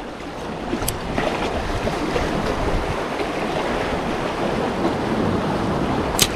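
Steady rush of waves and wind buffeting the microphone, with a sharp click about a second in and a louder one near the end.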